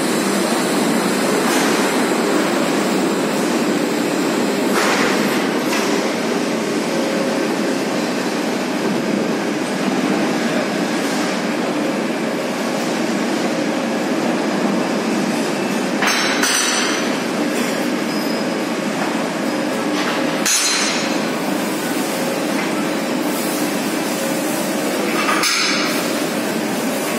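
Steady machinery noise with a hum and a clatter, broken by three sharp metallic clanks in the second half.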